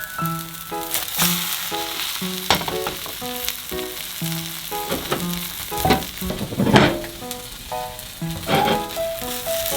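Egg and vegetable mixture sizzling in a frying pan with sesame oil, with a few louder stirring strokes. Light background music with a plucked melody plays throughout.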